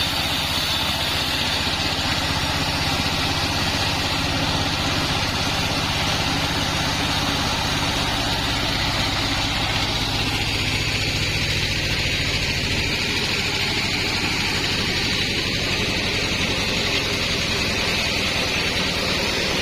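Band sawmill's engine running steadily with a hissing whir above it; the tone shifts a little about ten to thirteen seconds in.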